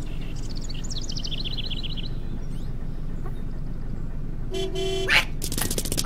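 Cartoon school bus engine idling with a steady low rumble, birds chirping over it for the first couple of seconds. A single short horn honk comes about four and a half seconds in, followed by loud rapid clattering.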